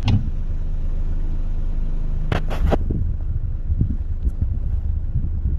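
Car's steady low rumble heard from inside the cabin, with two brief hissing bursts about two and a half seconds in.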